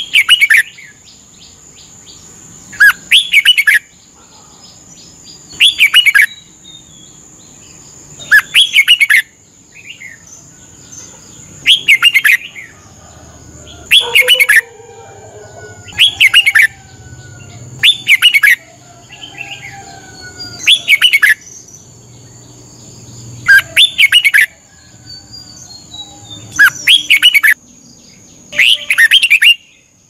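Red-whiskered bulbul singing about a dozen short, loud phrases, one every two to three seconds, with fainter calls from other birds between them. A steady high tone runs underneath.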